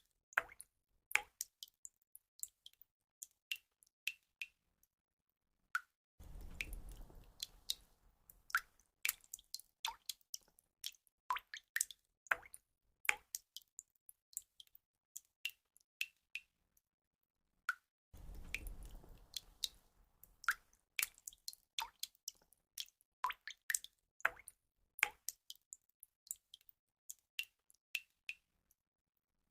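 Water drops falling and dripping: many irregular small plinks and plops, several a second, some with a short ringing pitch. Twice, for about two seconds, a low rumble of background noise rises under the drips.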